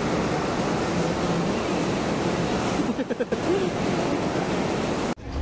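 Heavy rain pouring onto a glass roof, heard from beneath it as a loud, steady rush.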